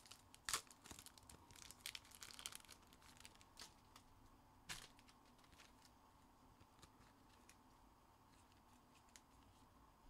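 Faint crinkling, tearing and light clicks of trading-card pack wrappers and cards being handled, scattered through the first five seconds and then dying down to a few faint ticks.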